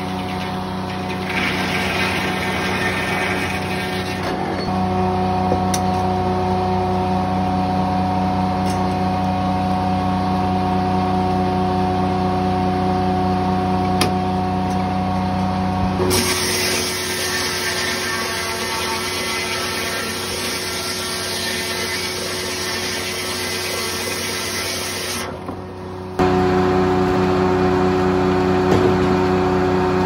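1940s Corley circle sawmill running, a steady drone from the mill's drive under the noise of the circular blade sawing pine. The sound shifts abruptly twice, about halfway through and near the end, and is louder after the second change.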